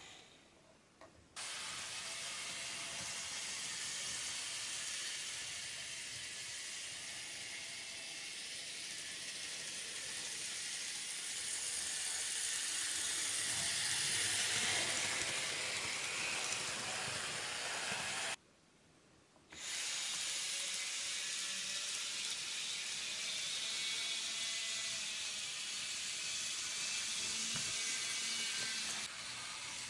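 N gauge model trains running on the track: a steady hissing whir of small motors and wheels on rail. It grows loudest about halfway through, as a train passes close by. The sound drops out twice, briefly, just after the start and about two-thirds of the way through.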